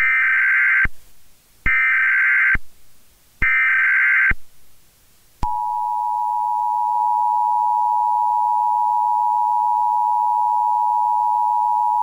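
Emergency Alert System tones: three short bursts of buzzing SAME header data tones, about a second and a half apart. After a brief pause, the two-tone EAS attention signal starts about five and a half seconds in and holds steady and loud.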